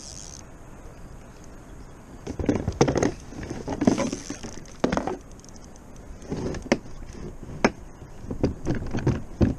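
Irregular knocks, clunks and rattles on a plastic pedal kayak as its Hobie Mirage Drive is handled to free a fishing line wrapped around it. They start about two seconds in, with a few sharp clicks in the second half.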